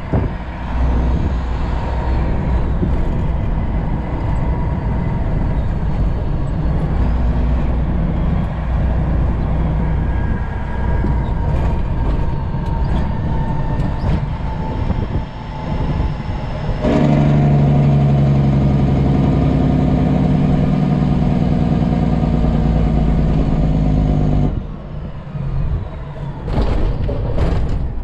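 Inside a semi-truck cab at highway speed: the diesel engine and road noise rumble steadily. In the second half a louder steady drone cuts in suddenly and stops just as suddenly several seconds later. A few sharp clicks follow near the end.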